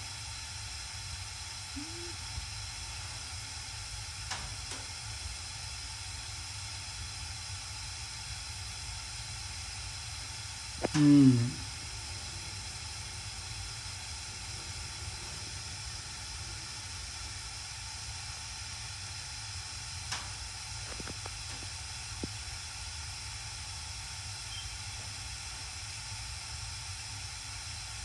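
Gas furnace burners burning with a steady hiss, with no blower fan running; the owner suspects the blower has quit. A short vocal sound breaks in about eleven seconds in.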